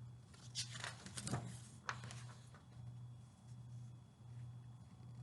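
Paper rustling as a picture book is handled and its pages moved, with a sharp click about two seconds in, then quiet handling. A faint low hum that pulses on and off sits underneath.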